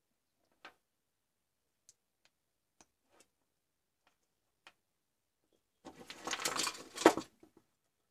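Faint clicks of a small circuit board being handled, then about a second and a half of scraping and clatter about six seconds in. It ends in one sharp click as a metal alligator test clip is clamped onto the board.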